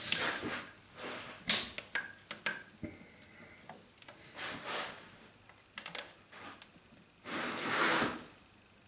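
Scattered sharp clicks and knocks of a blue segmented plastic coolant hose being forced by hand onto its fitting, with a rush of noise about a second long near the end.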